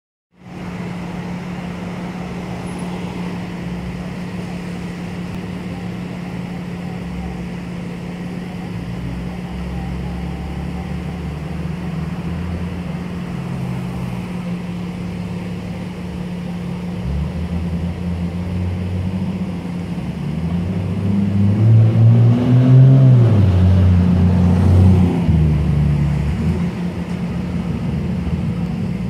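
Road traffic rumbling with a steady low hum underneath; it swells between about 20 and 26 seconds as a vehicle passes close, its engine pitch rising and falling.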